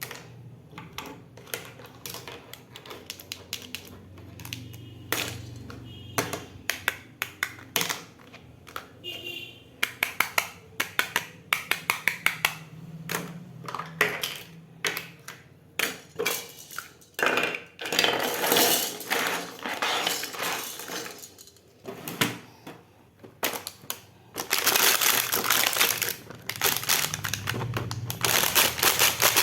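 Small plastic miniature toy pieces clicking and tapping as they are handled, with two longer stretches of crinkling packaging, one about two-thirds of the way in and one near the end.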